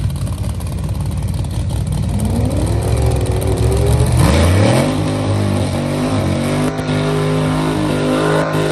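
Drag-race car engine doing a burnout. It runs with a low, rough rumble, climbs in pitch from about two seconds in, then holds steady at high revs from about five seconds in while the rear tyres spin and smoke.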